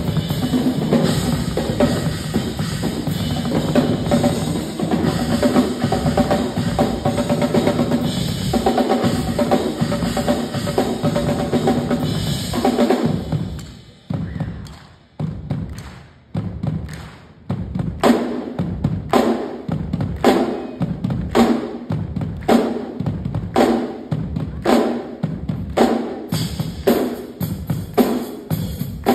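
Two acoustic drum kits played together in a duet: fast, dense playing with rolls on snare, toms and bass drum. About 13 seconds in it breaks off into a few sharp separate hand claps. A steady beat of strong drum-and-cymbal hits then builds up again, a bit more than one a second.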